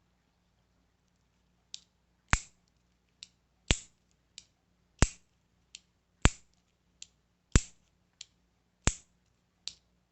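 Boker Kalashnikov Mini automatic knife being repeatedly fired open and closed: a softer click followed about half a second later by a sharp, louder snap, seven times in a row, roughly every second and a third.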